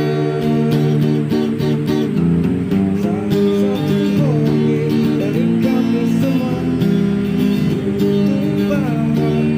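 Background music led by guitar, with steady sustained chords and a gliding melody line over them.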